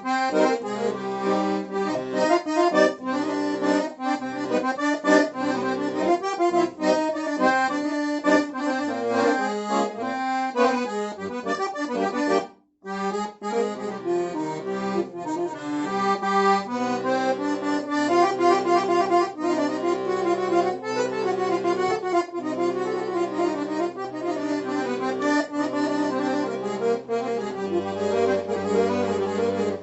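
Accordion being test-played after a repair: a melody in chords over sustained bass notes, with a momentary silent break about twelve seconds in.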